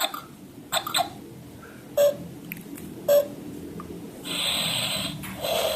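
Toy baby doll giving out its snoring sound: a breathy snore about four seconds in, starting again just before the end, after a few light handling clicks and two short blips.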